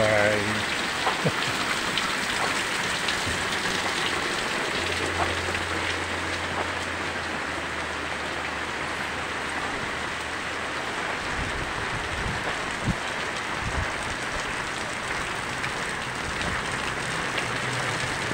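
Heavy rain pouring steadily on a paved alley and its surrounding metal roofs and walls, a dense even patter.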